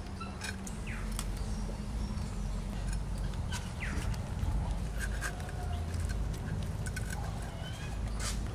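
Small clicks and wet ticks of small fish being picked over and gutted by hand against a boti blade, over a low steady rumble, with a few short falling bird chirps.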